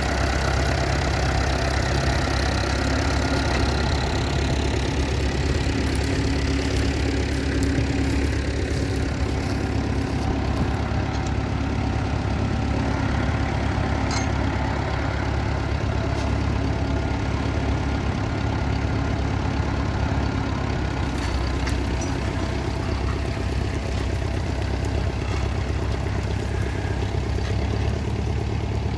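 Tractor engine running steadily at an even speed, with a low, regular beat.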